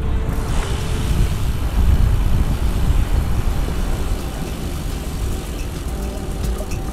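Riding noise on a moving road bike: wind rushing over the microphone with road and tyre rumble, steady throughout and swelling slightly a couple of seconds in.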